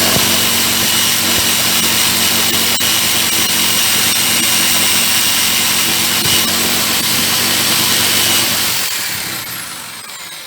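An electric power tool cleaning small mower parts runs steadily at full speed. Near the end it is switched off and spins down, its high whine falling in pitch as it dies away.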